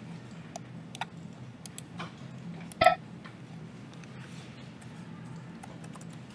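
Scattered computer mouse clicks and keyboard taps over a low steady room hum, with one short, loud, pitched sound about three seconds in.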